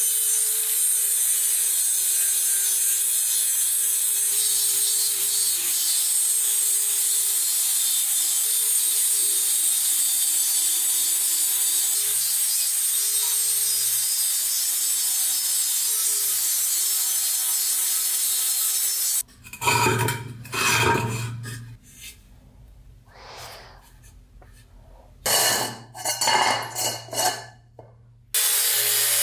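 Angle grinder with an abrasive disc grinding the steel base of an oil lamp: a steady hiss over the motor's whine. It cuts off suddenly about two-thirds through, followed by a few loud knocks and scrapes, and starts grinding again right at the end.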